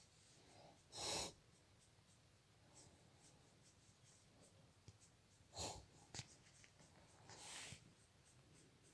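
Near silence with faint rustling of a hand rubbing a dog's fur and a plush blanket, broken by a few short, louder noisy bursts: the loudest about a second in, two more close together a little before the six-second mark, and a softer, longer one near the end.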